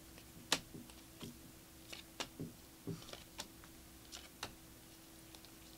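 A stack of glossy Panini Prizm basketball cards being flipped through by hand, each card clicking or snapping as it is slid off the pile, at an irregular pace. A faint steady hum runs underneath.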